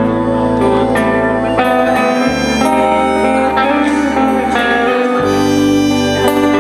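Live band playing an instrumental passage: guitar over a bass line that changes note a couple of times, with occasional cymbal-like hits.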